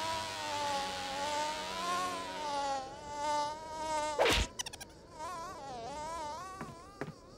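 Cartoon sound effect of a fly buzzing around, its pitch wavering up and down. A little over four seconds in comes one sharp hand clap as it is swatted at, then the buzzing starts up again, with a couple of faint clicks near the end.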